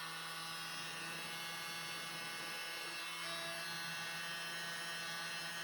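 Small handheld electric blower running steadily: an even motor hum and whine with a fan rush, blowing air over wet paint.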